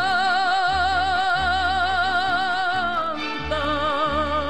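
Huapango song: a singer holds one long note with a wide vibrato, stepping down to a lower note about three seconds in, over low bass notes.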